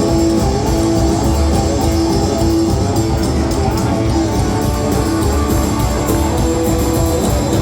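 Live rockabilly band playing an instrumental stretch: electric guitar notes over driving bass and drums with steady cymbal strokes.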